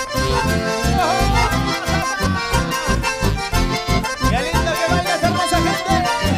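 Live band playing an instrumental passage, an accordion carrying the melody over strummed guitars and a steady bass beat.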